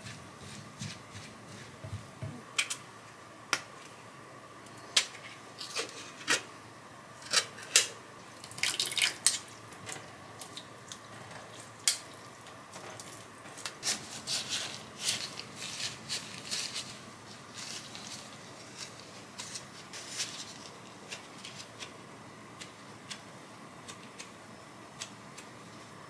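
A spatula scraping and knocking against a glass bowl while seasoned rice is mixed, with sharp clicks every second or so. About halfway through, it gives way to softer rustling and squishing as hands in disposable gloves press the rice into balls.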